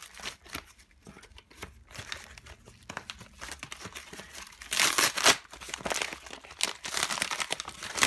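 Paper and cardboard mailer being torn and crinkled by hand to free a Blu-ray case: irregular ripping and crackling, loudest about five seconds in and again near the end.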